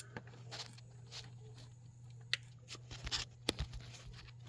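Faint scattered clicks and taps over a steady low hum, a sharper click about three and a half seconds in.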